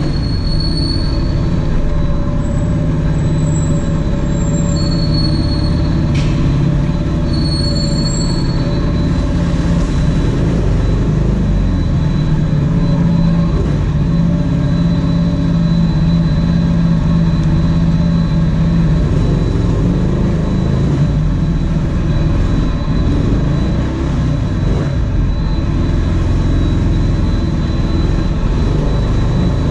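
Motors and propellers of a Blade 250 racing quadcopter, heard from its own onboard camera, buzzing loudly and steadily in flight, the pitch drifting up and down a little with the throttle.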